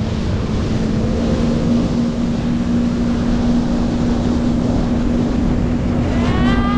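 Jet ski engine running at a steady speed with a constant whine, over rushing wind and water noise. A voice calls out near the end.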